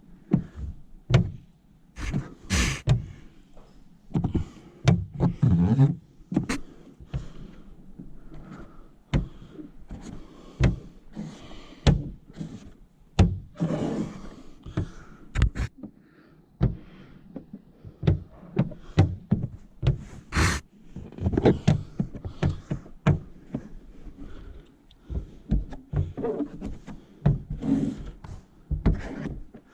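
Irregular knocks, taps and thunks with brief stretches of scraping or rubbing: hand-tool and handling sounds from working on the film and glass of a car's rear window.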